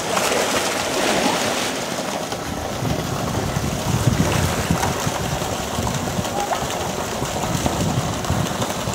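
Water splashing and sloshing as a polar bear swims and paws at a floating plastic toy, over a low, uneven rumble. It is loudest about four seconds in.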